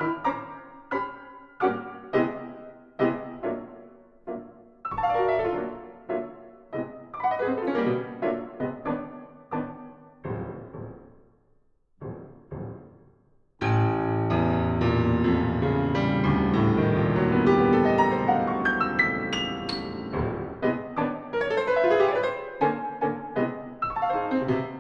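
Piano playing contemporary classical music: separate struck chords that ring and die away, a near-silent pause about ten seconds in, then a sudden loud, dense, sustained mass of notes from about fourteen seconds that breaks back into struck chords near the end.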